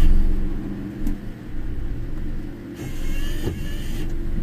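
Car cabin noise while driving: a steady low engine and road hum, with a louder rush of hiss and short squeaky tones coming in about three seconds in.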